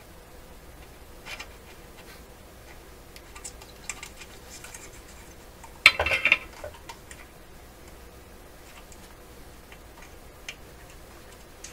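Small clicks and taps of hand tools working on a valve radio chassis while a capacitor is being removed, with a louder, sharper clatter about six seconds in.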